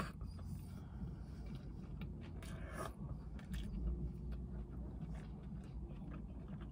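A person chewing a mouthful of Big Mac with mouth closed, with soft clicks and a brief rustle about two and a half seconds in, over a steady low hum.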